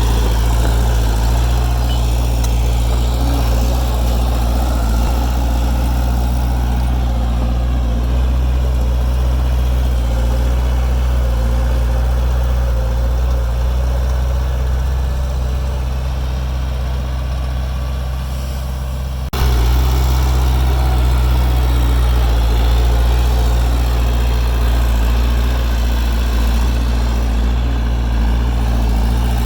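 Bulldozer's heavy diesel engine running steadily with a low drone. The level eases off slightly, then jumps back up at a sudden cut about two-thirds of the way through.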